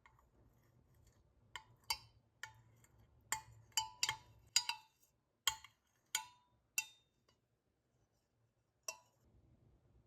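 Light clinks and knocks of hard objects being handled and set down: about a dozen short, sharp taps over some five seconds, then a single one near the end.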